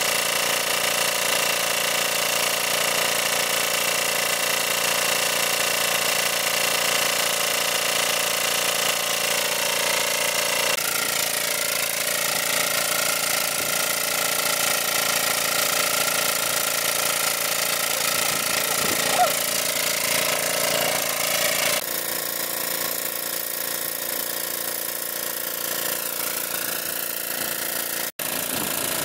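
Engine of a large-capacity water pump running steadily with a dense mechanical drone. The sound changes abruptly twice and drops out for an instant near the end.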